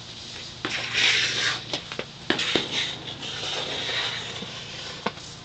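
Scattered sharp knocks and clicks with bursts of hissy rustling and scraping, like plants or debris being struck and brushed.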